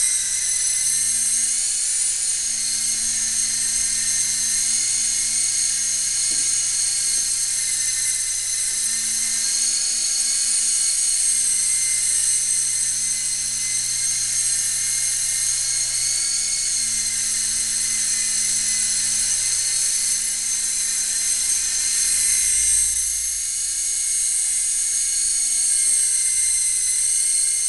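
Small electric motors of a toy coaxial remote-control helicopter whining at a high pitch as it flies, the pitch rising and falling slightly as it goes.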